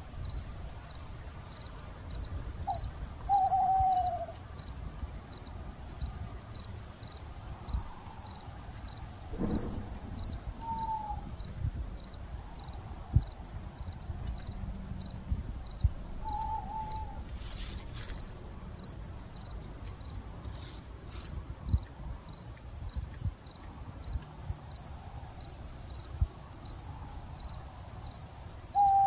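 Crickets chirping in a steady rhythm, about two chirps a second, over a thin high insect trill. A short falling call sounds four times, and there are a few soft knocks.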